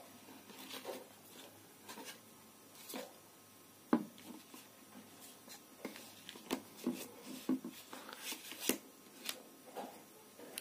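Handling noise from hands holding and tapping a Redmi Note 8 Pro smartphone: scattered soft taps, rubs and rustles, with one sharper knock about four seconds in.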